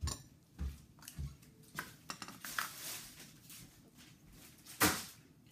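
An aerosol can of whipped cream being handled: a few soft thumps and light clicks, then one sharp snap about five seconds in as the plastic cap comes off.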